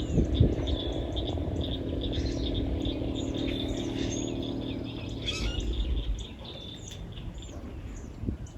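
Songbirds chirping and whistling over a steady insect trill. A low rumble, with a couple of thumps near the start, sits under them and drops away about six seconds in.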